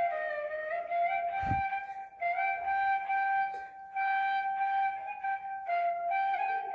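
Bansuri (side-blown Indian bamboo flute) playing a slow solo melody of long held notes, sliding down between notes at the start, with two short pauses for breath.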